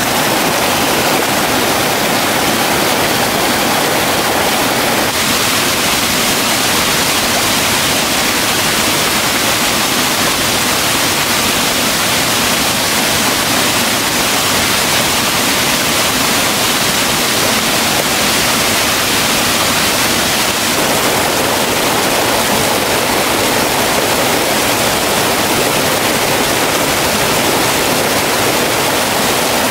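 Loud, steady rush of a waterfall, water pouring over rocks, its tone shifting a little about five seconds in and again about twenty seconds later.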